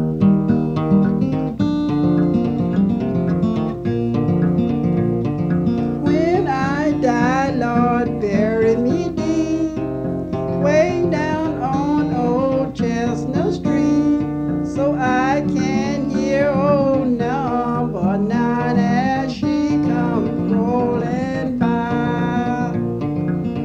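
Music: acoustic guitar playing a folk song, with a wavering lead melody joining over it about six seconds in.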